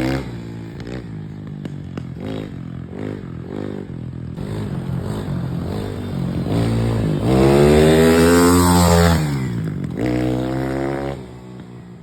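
Apollo RXF 150cc dirt bike's single-cylinder four-stroke engine revving up and down. There are several short throttle blips first, then a long, loud rev that climbs and falls back about two-thirds of the way through, another shorter rev, and the engine sound drops away near the end.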